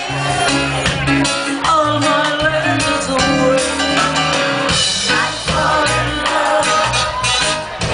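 A live ska band playing: a woman singing into a microphone over electric guitar and drum kit, with a steady beat.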